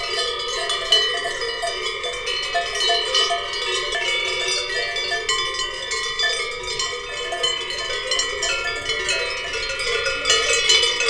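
Cowbells on grazing cattle clanking continuously, many bells of different pitches ringing over one another in an irregular jangle.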